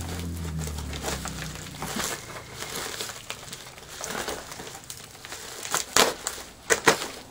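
Padded plastic mailer crinkling and rustling as it is handled and slit open with a utility knife, with a cluster of louder, sharper crackles near the end.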